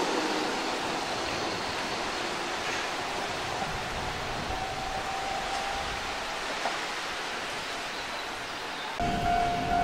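Steady hiss of rain falling around a railway station platform. Near the end a louder sound with a steady tone and a low rumble cuts in suddenly.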